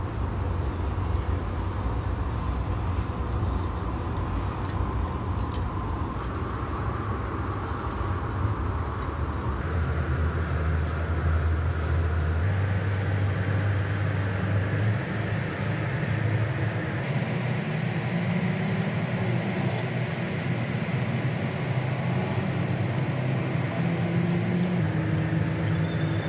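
Steady low rumble of city road traffic, with a low hum that steps up in pitch about ten seconds in.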